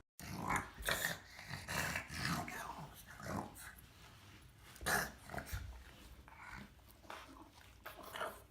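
A dog growling in short, irregular bursts, the loudest about five seconds in.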